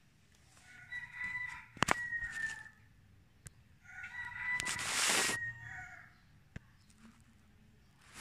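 A rooster crowing twice, each crow about two seconds long, the second louder than the first. A sharp click sounds near the end of the first crow.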